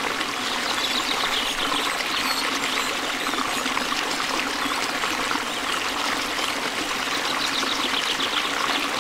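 Steady rush of running water, like a trickling stream or a running tap, even and unbroken.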